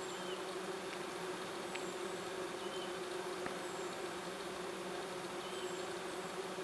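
Steady buzzing hum of many bees and bumblebees foraging among the blossoms of flowering lime (linden) trees.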